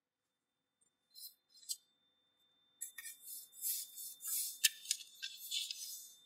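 A sheet of origami paper being folded and creased by hand: a couple of brief rustles about a second in, then from about three seconds a busy run of crinkling, sliding and sharp creasing clicks.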